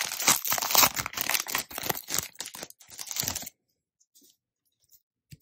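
Foil wrapper of a Pokémon trading-card booster pack being torn open and crinkled by hand: a dense run of tearing and crackling that stops about three and a half seconds in.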